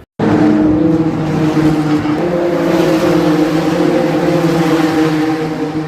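Several race car engines running together on track, a loud steady drone of overlapping engine notes that starts abruptly.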